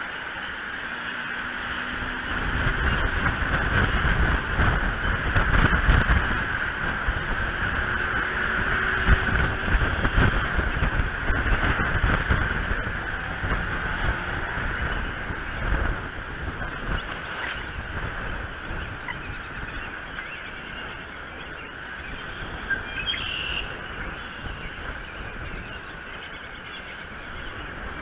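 Wind gusting against the outdoor nest-cam microphone, buffeting hardest in the first half and easing later, over a steady hiss of rain.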